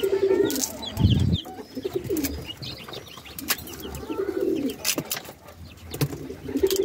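Domestic pigeons cooing in low, repeated phrases, with chicks peeping in short high notes. There are a few small cracks as eggshell is picked off an egg by hand.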